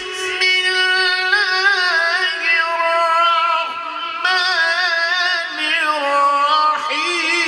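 A man reciting the Quran in the melodic tajweed style in a high voice. He draws out one long, ornamented note that winds up and down, then breaks briefly near the end and starts a new rising phrase.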